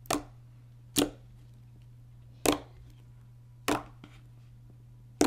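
Glossy slime pressed and poked by fingers, giving five short, sharp pops, roughly a second or so apart, as air pockets are squeezed out. A faint steady low hum runs underneath.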